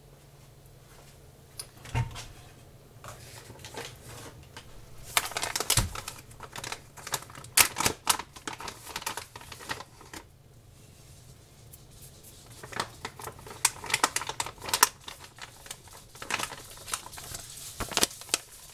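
Salt being added by hand to a stockpot of beef and mushrooms: bursts of rapid clicking and rattling from the salt container, from about five to ten seconds in and again through the second half. A single knock comes about two seconds in.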